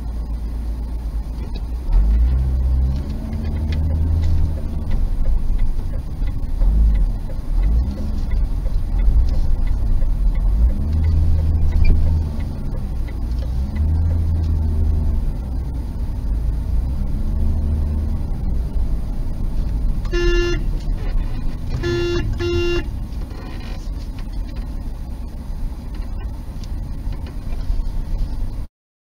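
Car driving, heard from inside the cabin: a steady low engine and road rumble whose pitch rises and falls several times. About two-thirds of the way in a car horn sounds three short toots, one and then two close together.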